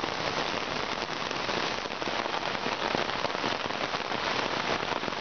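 Heavy rain pouring down in a steady, dense hiss of drops, mixed with the rush of a creek in flood.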